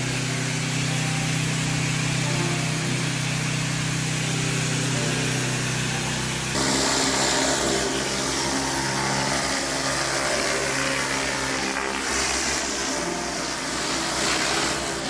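Pressure washer's Honda GX390 engine running steadily under load, with high-pressure water spraying. About six and a half seconds in, the engine note shifts and the hiss of the spray gets louder.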